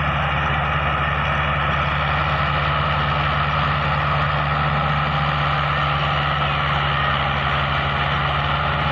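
Massey Ferguson 375 tractor's four-cylinder diesel engine running steadily under load while hauling a heavily loaded sugarcane trailer.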